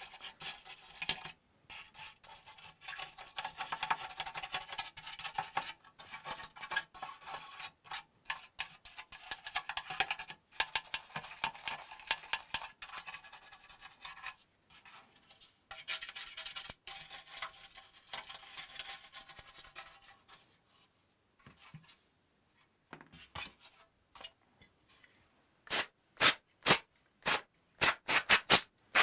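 Stiff bristle brush scrubbing caked dust and dirt out of a PS4's plastic bottom shell in irregular scratchy strokes. The brushing thins out for a few seconds, then near the end turns into quick regular strokes, about two to three a second.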